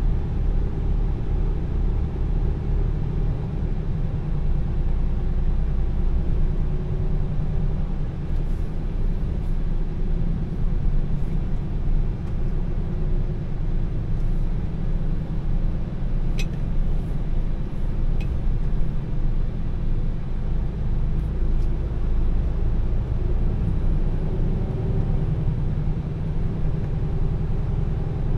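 Heavy truck's diesel engine running with road noise while driving, its low note drifting a little up and down. Two short clicks come a little past the middle.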